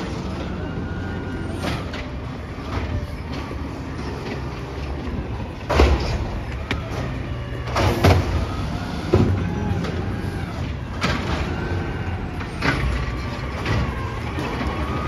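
Automated side-loader garbage truck running and moving along the street, its engine rumbling steadily under a whine that rises and falls. Several sharp metal bangs from the truck's body and arm ring out in the second half.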